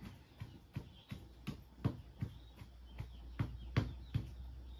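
Wooden pestle pounding soaked rice in a small bamboo mortar, a steady knock about three times a second.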